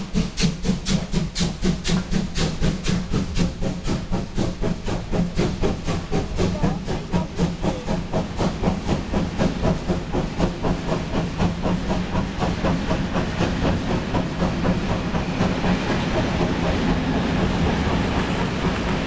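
Class 01 steam locomotive 01 118 working up a steep gradient, its exhaust beats at about four a second fading as it moves away, giving way to the steady rolling noise of passenger coaches crossing a bridge, over a steady low drone.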